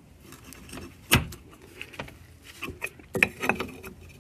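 Wrench tightening a -6AN flare fitting into an aluminium thermostat housing held in a vise: a few irregular sharp metal clicks and clinks, the loudest about a second in and several more around three seconds in.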